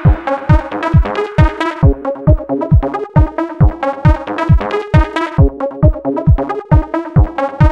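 Electronic dance music with a steady, punchy kick drum about two beats a second under synthesizer chords.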